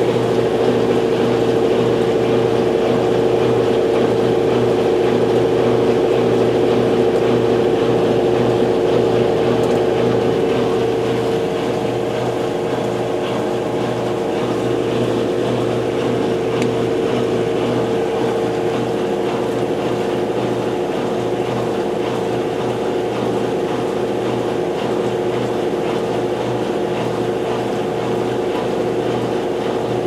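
GE GTW680BSJWS high-efficiency top-load washer on its normal spin cycle: the motor and spinning basket give a steady hum with a strong steady tone. It drops a little in level about a third of the way in.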